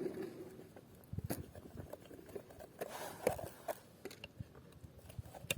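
Scattered crunching and clicking noises, with a denser patch of crunches about a second in.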